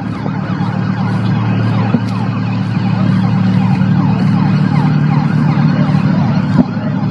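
Emergency vehicle sirens sounding over a steady low hum.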